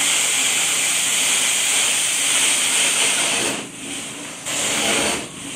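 Truck-mounted hot water extraction carpet wand running with a steady, loud rushing hiss as it is worked over a spot in the carpet. The hiss drops away briefly twice near the end.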